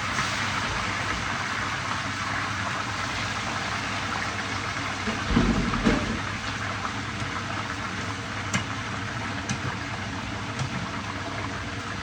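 Fish frying in hot oil in a pan, sizzling steadily. There is a short low thump about five seconds in and a few light clicks later on.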